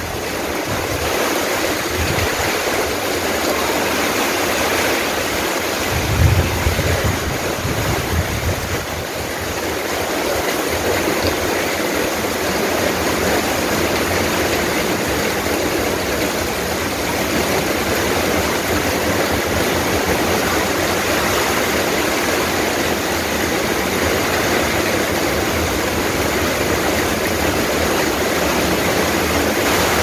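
Heavy rain pouring steadily onto a tiled courtyard and leafy plants, a dense even hiss. A brief low rumble rises under it about six seconds in and fades by about nine seconds.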